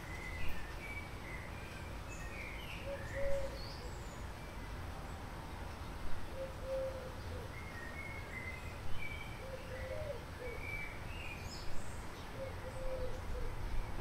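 Outdoor birdsong: scattered short chirps from small birds, with a lower call that comes back every three seconds or so, over a steady low rumble of background noise.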